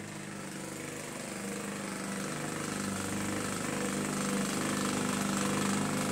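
Lawn mower engine running steadily, growing gradually louder.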